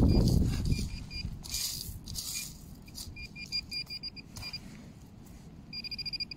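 Handheld metal-detecting pinpointer giving short high-pitched beeps as it is pushed through loose gravel, the loose pebbles rustling loudest in the first second. Near the end the beeps run together into a fast even string as the probe sits on a small metal target, a bicycle tyre valve.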